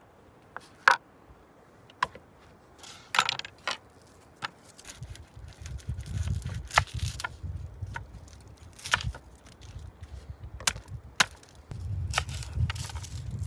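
Large kitchen knife cutting raw lamb and chopping on a wooden cutting board and bowl: irregular sharp knocks of the blade against wood. A low rumble runs underneath from about five seconds in.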